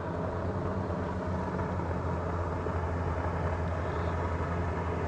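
Steady low mechanical rumble in the background.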